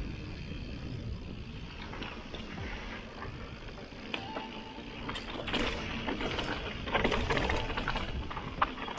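Mountain bike riding down a rough trail: a steady rumble of wind on the microphone over the rattle and clatter of the tyres and bike on the ground, growing louder and busier about halfway through, with a sharp knock near the end.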